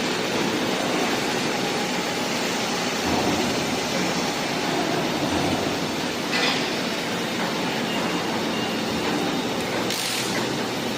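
Steady mechanical din of a factory workshop, a dense rumble without a clear rhythm, with brief sharper noises about six and ten seconds in.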